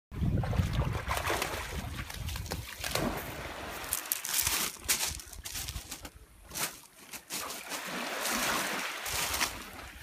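Husky swimming in shallow sea water, with irregular splashing and sloshing of the water around it.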